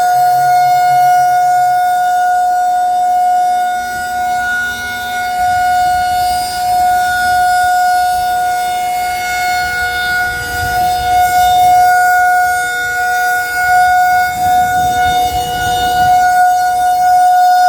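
Federal Signal 2001-SRN rotating outdoor warning siren sounding its alert signal: one steady, unbroken tone whose loudness gently dips and swells as the siren turns. Faint low rumbling runs underneath in the middle of the stretch.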